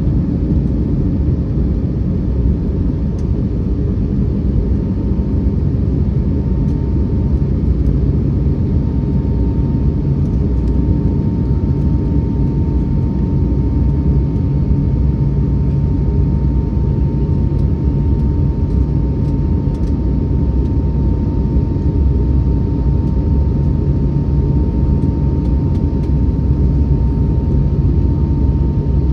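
Airbus A321neo cabin in the climb after takeoff: a steady, even drone of engines and airflow, deep and low-pitched, with a faint steady whine above it.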